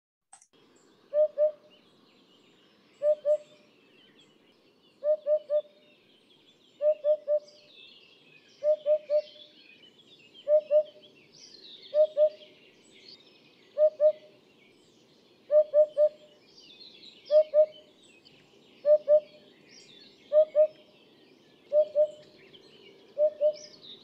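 Eurasian hoopoe song: soft, low hoots in groups of two or three, repeated about every two seconds. Other birds chirp faintly higher up in the background.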